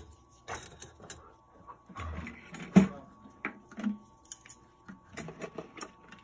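Strips of scrap copper clinking against each other and the crucible as they are pulled from a jar and packed by hand into a clay crucible: irregular metallic clinks and rattles, the loudest about three seconds in.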